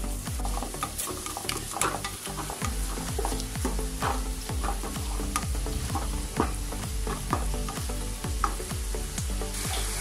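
Flat plastic spatula stirring and scraping an onion-tomato masala as it sizzles in oil in a nonstick kadai, with frequent short scrapes against the pan.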